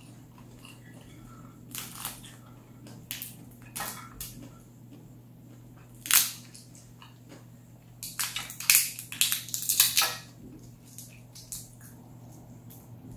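Shells of boiled shrimp and crawfish cracked and peeled by hand. Sharp crackles come in small groups, with the loudest snap about six seconds in and a dense run of crackling from about eight to ten seconds.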